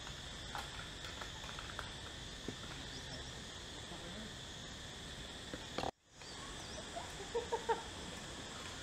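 Steady drone of forest insects in a constant high band, with scattered small clicks and knocks from handling things at a small cooking fire. The sound drops out briefly about six seconds in, and a few sharper taps follow a second or so later.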